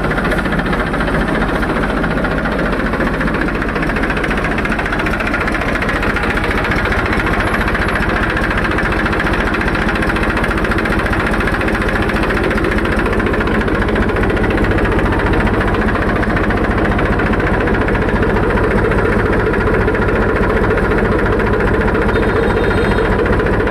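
Eicher 480 tractor's diesel engine idling steadily with a fast, even pulse.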